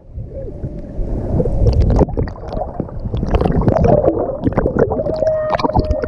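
Seawater sloshing and gurgling over the GoPro HERO5 Black's built-in microphone as the camera is dipped in the surf, heard as a muffled rumble with many scattered knocks and crackles.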